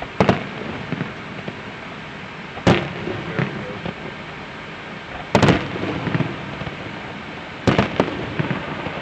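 Aerial fireworks shells bursting: four rounds of sharp bangs a couple of seconds apart, some of them doubled, each followed by a few smaller pops.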